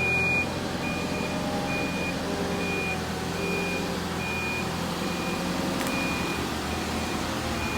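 Vehicle reversing alarm beeping steadily, one high beep about every 0.8 seconds, over the steady hum of a running diesel engine.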